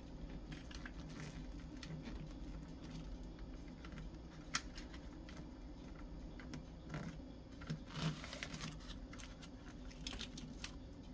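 Wrapping paper rustling and crinkling as it is folded and pressed onto a cardboard box, with small scattered taps and clicks from hands and paper against the cardboard.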